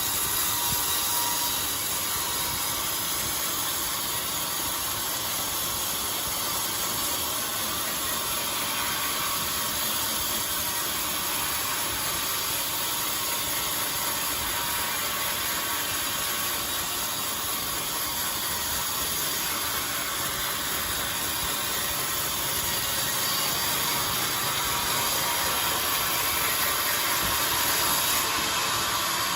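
Band sawmill running steadily, an even mechanical noise that grows a little louder near the end.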